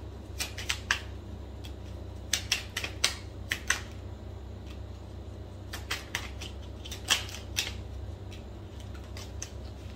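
Tarot cards being shuffled and handled by hand: sharp card snaps and taps in three short clusters, about half a second, two and a half seconds and six seconds in, over a low steady hum.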